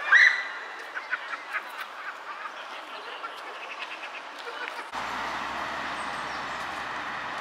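Waterbirds on a river calling: one loud call right at the start, then a scatter of short calls over the next couple of seconds. About five seconds in, the sound cuts to the steady hiss and rumble of passing road traffic.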